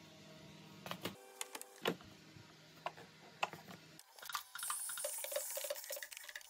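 Plastic parts of a bagless vacuum cleaner's cyclone and filter assembly clicking and knocking as they are handled, over a low hum. About four and a half seconds in, a tap starts running water, hissing steadily.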